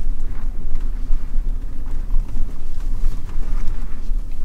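Vehicle driving slowly over a rough gravel dirt track: a steady low rumble of engine and tyres, with faint scattered ticks of stones under the wheels.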